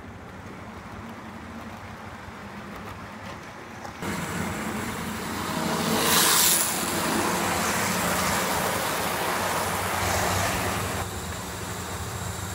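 Model train running on the layout's track, a steady low whirring of motor and wheels that gets suddenly louder about four seconds in. There is a brief, loud noise about six seconds in.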